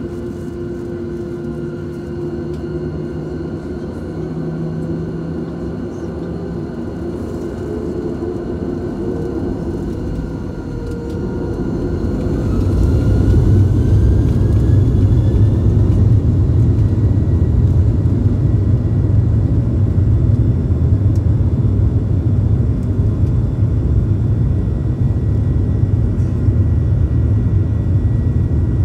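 Boeing 737 jet engines heard from inside the cabin. They whine steadily at low power, then about twelve seconds in the whine rises as they spool up to takeoff thrust, and it gives way to a loud, steady low rumble for the takeoff roll.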